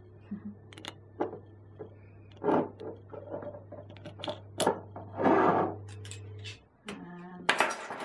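Clicks and clinks of a metal measuring spoon and a glass vanilla-extract bottle being handled as the cap is unscrewed, with two short scraping sounds. A low steady hum runs underneath and cuts out near the end.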